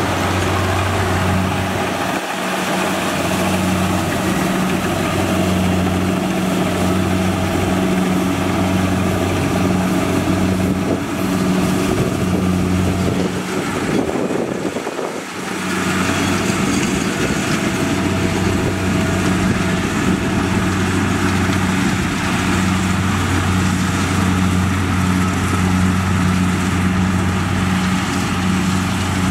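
Kubota DC-70 combine harvester running steadily while it cuts and threshes rice, its diesel engine giving a constant low hum over a broad mechanical noise. The sound dips briefly twice.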